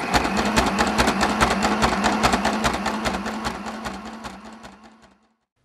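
Janome Sew Mini sewing machine running unthreaded on a zigzag stitch, its needle punching holes through cardstock: a steady motor hum with rapid, even needle clicks. It fades and stops about five seconds in.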